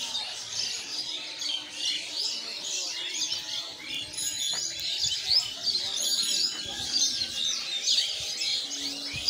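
Many birds chirping and singing at once, a dense chorus of quick high chirps and trills.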